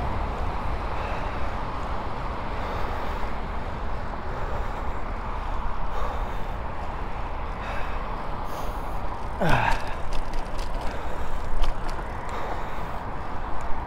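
Wind rushing over a handlebar-mounted GoPro's microphone with road noise while riding a road bike on a busy road, a steady rumbling hiss. About nine and a half seconds in, a brief whine falls quickly in pitch.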